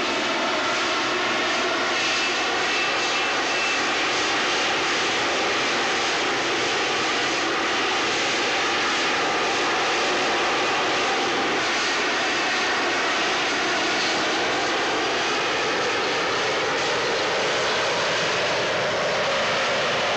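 Harrier jump jet's Rolls-Royce Pegasus vectored-thrust turbofan running at high power as the jet hovers and turns in slow flight. It makes a loud, steady jet noise with whining tones that drift slightly in pitch.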